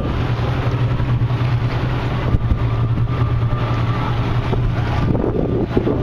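A fishing boat's engine running steadily under way, a constant low drone, with wind buffeting the microphone.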